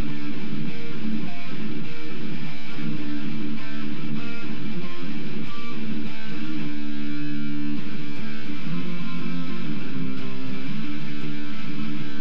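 Electric guitar playing a riff of low chords and single notes, picked with a SIM card in place of a pick; a chord is held for about a second and a half around the middle.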